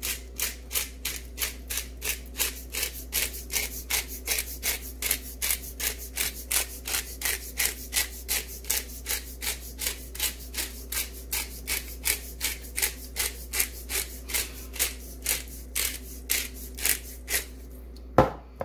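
Black pepper mill being twisted over raw chicken, grinding in a steady run of raspy strokes, about three a second. A single sharp knock comes near the end.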